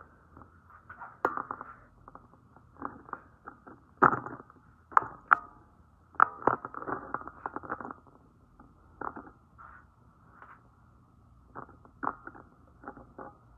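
Handling noise from the recording phone: irregular clicks, knocks and creaks as it is moved and set in place, loudest between about four and seven seconds in.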